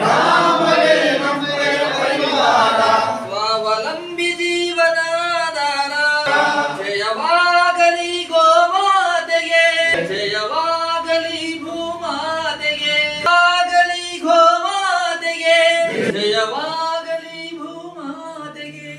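Voices singing a Kannada song together in unison: the farmers' organisation's song, in sung phrases that carry on through and ease off near the end.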